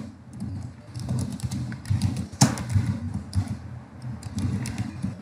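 Typing on a computer keyboard: scattered keystroke clicks, one sharper click about two and a half seconds in, over a low, uneven background rumble.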